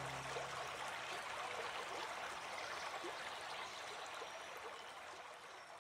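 Water trickling and gurgling, with many small plinks, fading out gradually; the last note of an acoustic guitar dies away in the first moment.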